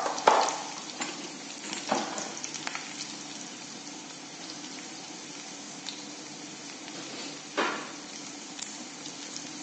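Hot oil sizzling steadily in a wok around green chillies, ginger, cumin seed and ground spices: the tempering (tadka) stage of a curry. A few short louder sounds break the sizzle, about a third of a second in, around two seconds in and near the end.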